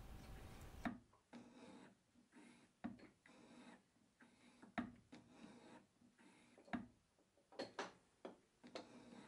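Hand-fed shaping strokes with a milling machine's quill: a narrow hand-ground cutter scraping slots into a cast-iron bore, faint scraping broken by a sharp click about every two seconds.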